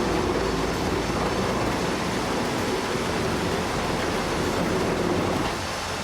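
Steady rumbling noise of a heavy vehicle on the move, easing a little in level near the end.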